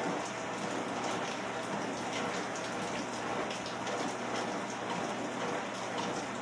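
Steady rain falling, a constant even hiss with no let-up.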